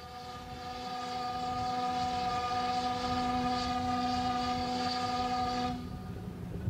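Steamboat's steam whistle blowing one long, steady blast of several tones together, cutting off near the end.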